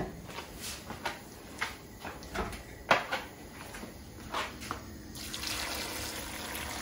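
A few light knocks and clicks, then, about five seconds in, a steady stream of water poured from an electric kettle onto dry white beans in a stainless steel pot.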